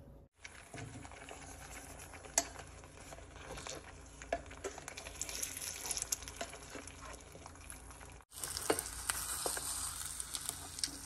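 Hot bacon grease sizzling and crackling in a small electric cooking pot, with scattered sharp pops. The sizzle drops out briefly twice and is louder after the second break, about eight seconds in.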